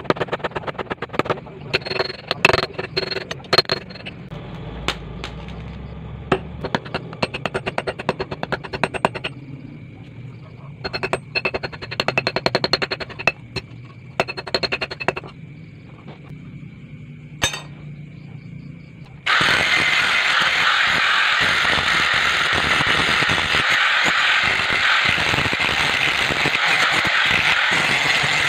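Quick hammer blows on a steel knife blade forged from an old bearing, struck against a steel plate, each blow ringing. About 19 s in, an angle grinder cuts in suddenly and grinds the steel blade with a steady, loud noise.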